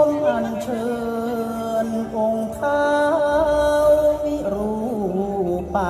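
Slow music: a melody of long held notes that slide and waver between pitches, over a low steady hum.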